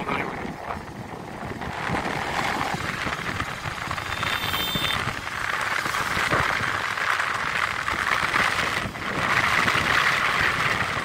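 Wind rushing over the microphone mixed with the road noise of a moving vehicle, a steady hiss that swells and eases, with a faint brief high tone about four and a half seconds in.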